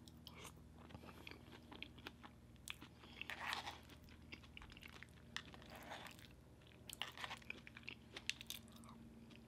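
Faint close-miked chewing of a mouthful of KFC Famous Bowl (crispy chicken bites in mashed potatoes with corn and cheese sauce): many small wet mouth clicks and soft crunches. A fork scoops into the plastic bowl, with two louder scraping moments about three and a half and six seconds in.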